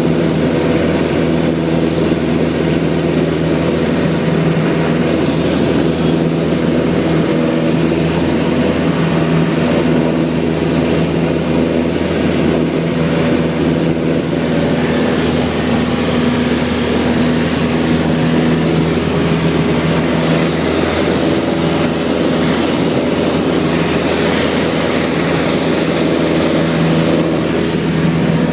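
Propeller engine of a Beechcraft light aircraft running steadily during takeoff and climb, heard from inside the cabin as a loud, even drone.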